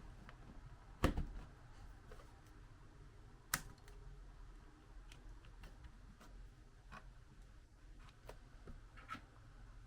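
Scattered light clicks and taps from objects being handled on a work surface, with one louder knock about a second in and a sharp click a few seconds later, over a low steady hum.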